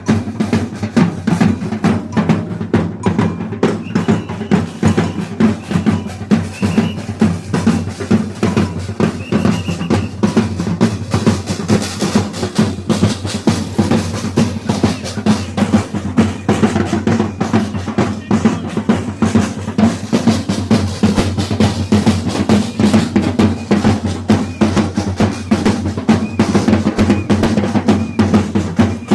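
Drum group of a bumba-meu-boi carnival band playing a fast, driving beat, with bass drums and snare drums struck in a dense steady rhythm.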